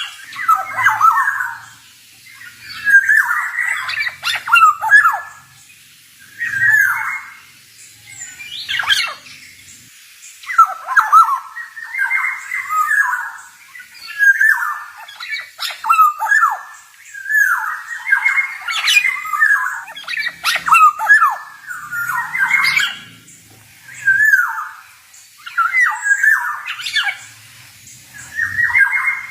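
Male black-naped oriole (kepodang) calling in a loud run of short phrases of quick notes, about one phrase every two seconds with brief pauses between.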